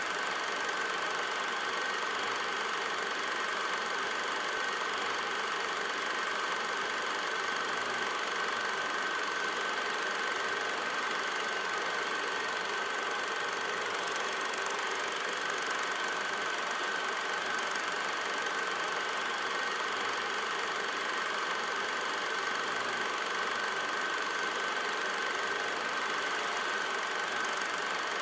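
Cine film projector running: a steady mechanical whir and clatter with a constant high-pitched tone running through it.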